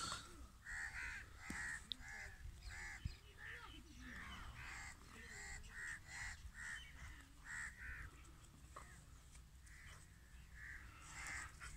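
Crows cawing in a fast run of short, harsh calls, about two or three a second, fairly faint.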